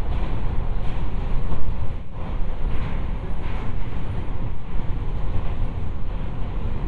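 JR West 223 series electric train running along the track, heard from inside the carriage: a steady rumble of wheels on rails.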